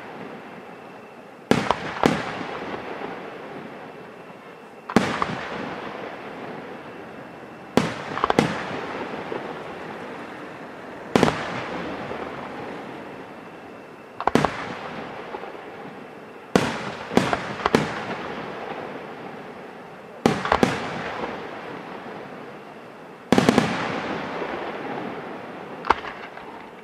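Morena Fireworks aerial shells bursting in a slow series: about ten sharp bangs, some in quick pairs, roughly every three seconds, each fading out over a couple of seconds.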